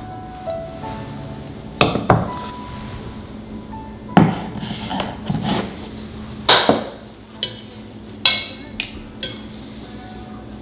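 Dishes being set down on a wooden table and chopsticks clinking against plates and bowls: about a dozen sharp knocks and clinks, some ringing briefly, over faint background music.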